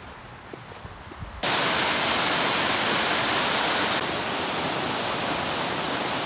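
Faint rustling, then about a second and a half in a loud, steady rush of flowing stream water starts abruptly, dropping a little in level about four seconds in.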